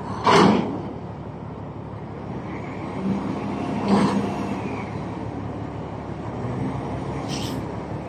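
Port machinery: a steady low engine rumble with a few clanks, the loudest about half a second in, another about four seconds in, and a brief higher clatter near the end.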